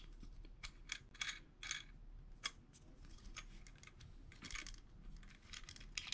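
Brass wing nuts being turned loose by hand on the threaded studs of a Delrin clamshell motor-pressing tool: faint, irregular small metallic clicks and scrapes.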